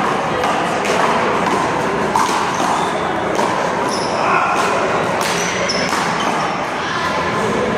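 A one-wall handball rally: a small rubber handball smacked by hand and striking the wall and ground, several sharp hits at uneven intervals, with voices talking over it.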